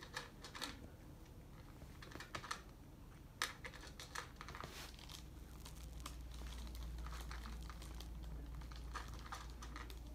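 A cat at a ceramic bowl, its mouth making small irregular clicks and crackles in clusters. A low steady hum sets in about halfway through.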